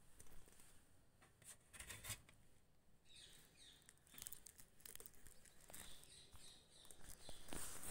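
Faint scattered clicks and rustles from a wire-mesh cage as a rose-ringed parakeet clambers about on it.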